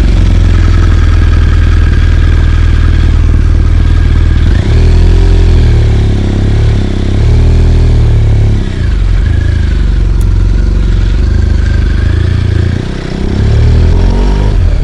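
BMW R1200GS flat-twin engine running just after being started, steady at first, then its pitch rising and falling several times from about four seconds in.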